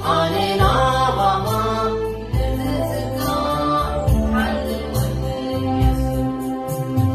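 A Tigrinya Catholic hymn (mezmur) sung by a man and a woman, accompanied on a Yamaha electronic keyboard, with steady sustained bass notes under the voices.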